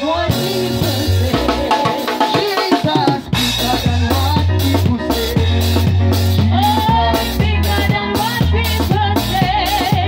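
Live band playing: a drum kit with snare and bass drum keeping a steady beat of about three hits a second under a sustained bass line and a wavering melody.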